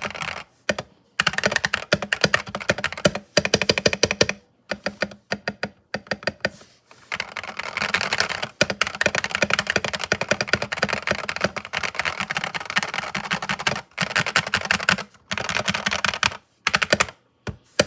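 Mechanical keyboard with Philikey Ice switches being typed on: quick runs of keystroke clacks in bursts of a few seconds, broken by short pauses.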